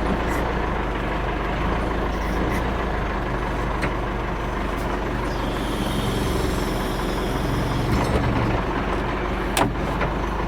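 Backhoe engine running steadily at idle, with a few sharp metallic clicks, the clearest near the end.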